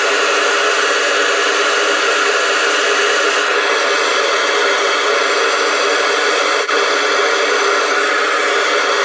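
Steady, loud hiss of a gas soldering torch flame heating copper water heater connections.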